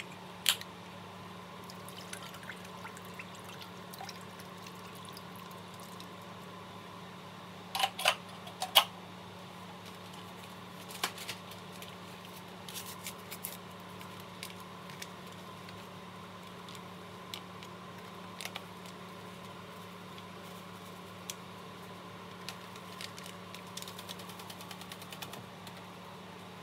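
A wooden spoon stirring liquid in an enamelled Dutch oven, knocking sharply against the pot now and then, with a cluster of three knocks about eight seconds in. A steady low hum runs underneath. Near the end comes a quick run of light ticks as seasoning powder is shaken into the pot.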